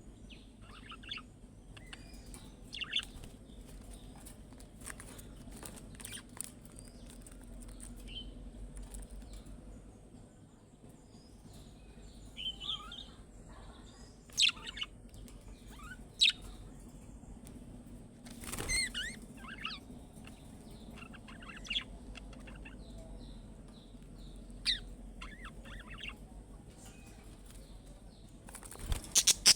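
Budgerigars chirping in short, scattered, high calls, with a few louder sudden noises: one about two-thirds of the way through and a quick cluster at the very end.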